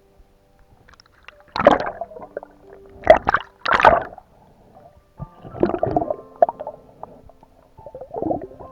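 Water sloshing and gurgling against the microphone in about five loud gushes, over faint background music of held notes.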